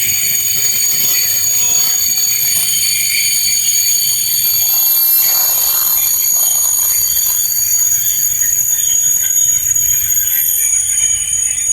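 Train standing at a station platform: a steady high-pitched whine of several held tones over a low rumble.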